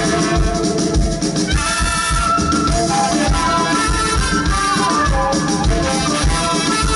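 Live band playing an instrumental passage: trumpet and trombone play a melody together over bass guitar and drums with a steady beat.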